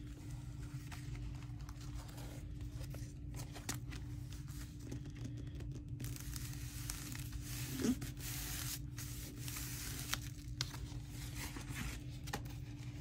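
Paper being handled and torn, with rustles and small clicks and a longer stretch of tearing about six seconds in, over a steady low hum.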